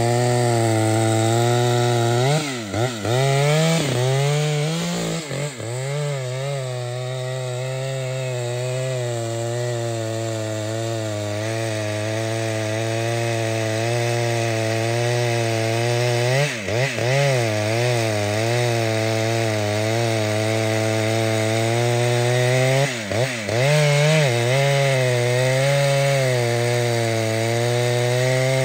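Large professional two-stroke chainsaw held at high revs, cutting through trembesi wood. The engine note stays steady, and a few times the revs dip briefly and pick up again.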